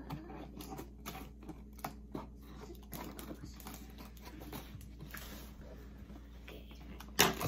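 Scissors snipping and scraping at the tape along the top seam of a cardboard box: irregular small clicks and scratches, with one louder knock near the end.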